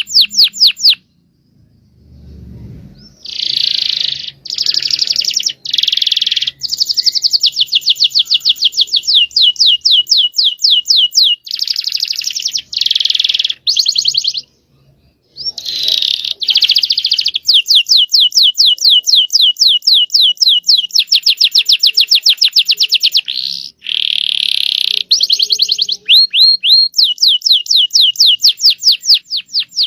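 Canary singing long rolling trills of very rapid repeated notes, high-pitched. The song breaks off briefly about a second in and again around halfway.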